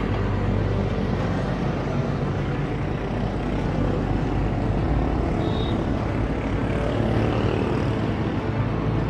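Steady wind rumble on the microphone of a camera riding on a moving road bike, a constant low rushing noise.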